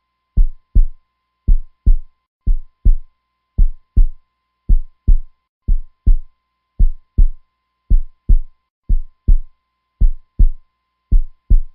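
Heartbeat sound effect: a steady double thump (lub-dub) repeating about once a second, the two thumps of each beat less than half a second apart.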